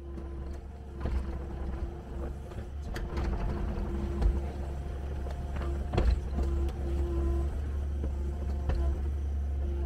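Kubota KX080-4S excavator's diesel engine running steadily with a low rumble, with a few sharp knocks along the way.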